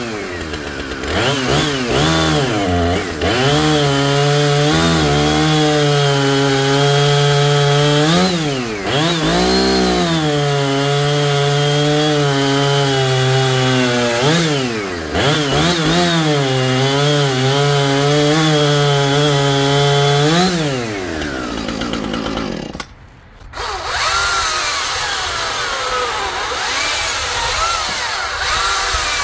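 Chainsaw running flat out while cutting a small log, its pitch dipping and recovering several times as it loads in the cut and is let off. It winds down about 20 seconds in, and a quieter saw sound follows after a brief break.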